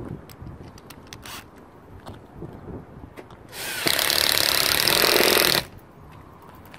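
Power drill running for about two seconds, starting halfway through, as it drives a screw to fasten a wire-mesh screen to the roof; light clicks and knocks of handling before it.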